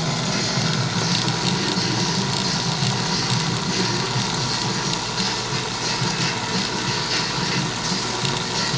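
Steady running of a saltwater aquarium's pump and filter, a constant rush of moving water.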